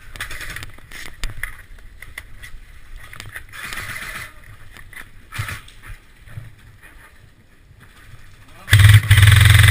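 Scattered faint clicks and snaps, then near the end a loud burst of about a second from an airsoft electric gun on full auto, a fast buzzing rattle.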